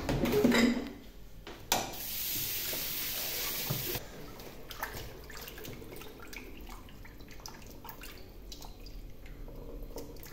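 Small splashes and drips as raw whole fish are rinsed and rubbed by hand in a plastic basin of water. Before that, a steady hiss lasts about two seconds and cuts off suddenly.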